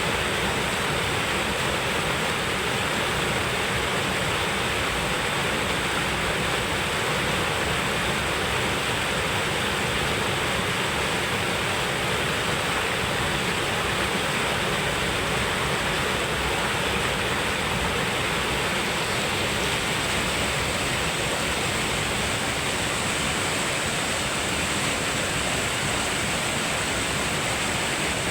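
Waterfall on a forest river: a steady rush of falling water with no let-up.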